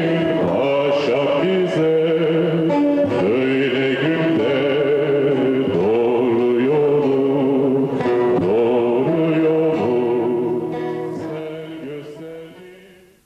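A song: a voice singing a wavering melody over instrumental accompaniment, fading out over the last few seconds.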